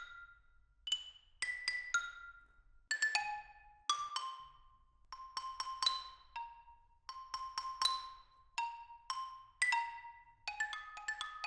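Xylophone played in its high register with Freer KBL black linen phenolic keyboard mallets: quick groups of bright, sharp struck notes with a short ring, coming thicker near the end.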